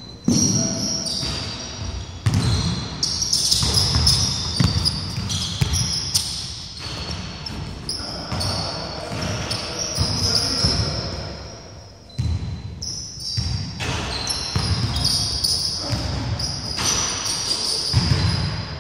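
Basketballs bouncing on a wooden gym court during a pickup game, repeated thuds with short high sneaker squeaks on the floor, echoing in a large hall.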